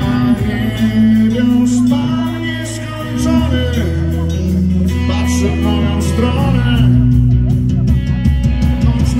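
Live rock band with a PA: a male lead vocal over electric guitars, bass and drums, played loud and steady.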